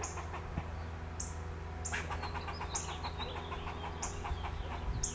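Squirrel giving repeated alarm calls: a sharp call about once a second, with a quick run of stuttering chatter about two seconds in. It is an alarm at a cat nearby.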